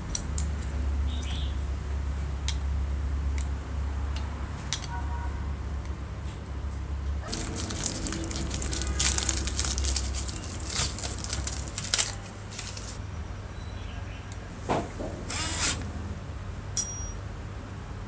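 Masking tape being peeled off a rotary telephone's painted metal base, a dense tearing rustle in the middle seconds, amid handling clicks and knocks. A low hum runs through the first seconds, and a short, high metallic ping sounds near the end.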